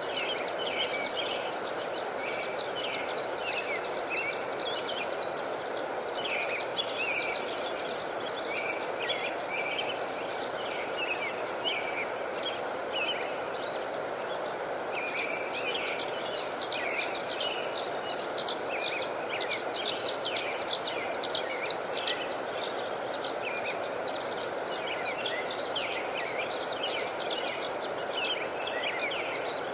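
Many small birds chirping over a steady rushing background. The chirps come throughout and crowd together into a dense run about halfway through.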